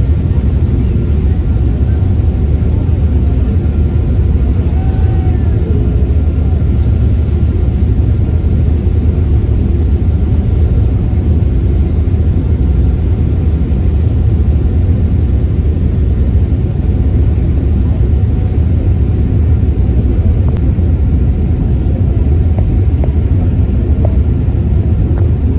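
Steady low rumble of a passenger ferry under way, its engine and hull noise running without change.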